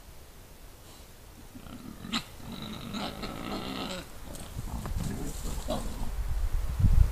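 Wild boar squealing and grunting as the group jostles, the lead sow asserting her rank over the others. There is a sharp squeal about two seconds in, a run of high squeals for the next couple of seconds, and shorter calls later. Near the end a loud low rumble builds.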